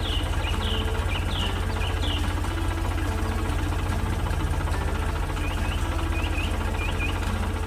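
Engine sound effect running steadily with a fast, even throb. Short bird chirps come now and then over it.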